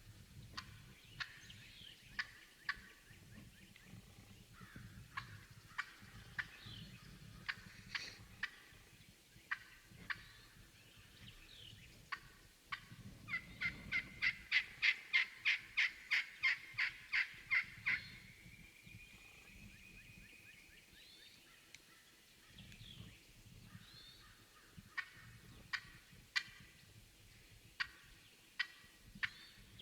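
Wild turkey calling: scattered single clucks, then a long run of about twenty yelps at about four a second in the middle, the loudest part.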